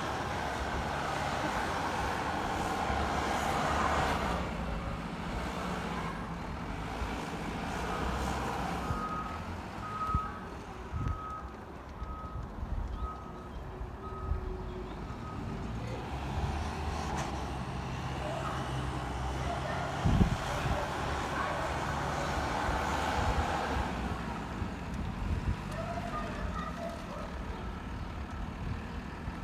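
JCB 413S wheel loader's diesel engine working under load and easing off as it pushes up a grass silage pit. Its reversing alarm beeps steadily for several seconds about a third of the way in, and there is one sharp knock about two-thirds of the way through.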